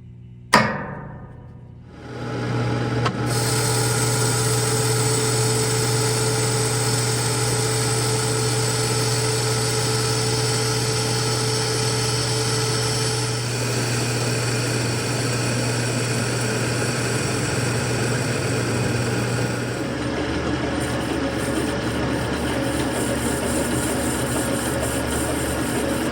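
A sharp click, then about two seconds in a metalworking machine tool starts up and runs steadily, a hum with several whining tones. The tone shifts about halfway through and again near the end.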